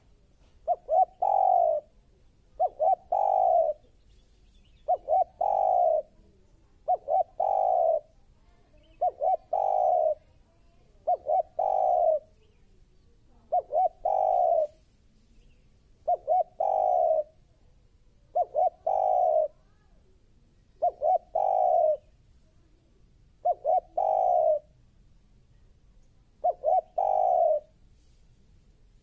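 Spotted dove cooing: a phrase of two or three short quick notes and then a longer coo, repeated steadily about every two seconds.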